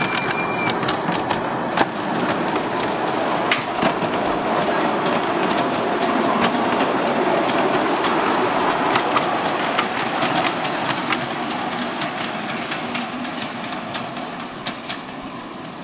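Miniature ridable railway train rolling past on its track, its wheels clicking over the rail joints, fading over the last few seconds as it moves away. A brief high steady tone sounds right at the start.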